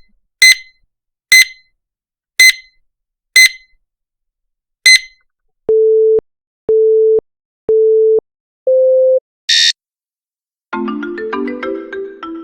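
A run of electronic sound effects: five sharp, bright pings about a second apart, then three steady beeps and a fourth slightly higher beep, in the pattern of a race-start countdown. A brief hiss burst follows, and near the end a marimba melody like a phone ringtone begins.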